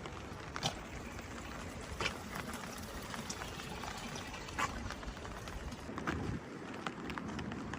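Steady rain falling, with a few louder sharp taps of drops standing out now and then.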